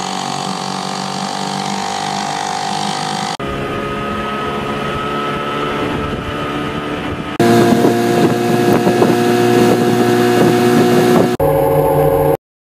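Outboard motors running on boats, four short clips cut one after another, each with its own steady engine note; the third is the loudest. The sound cuts off abruptly near the end.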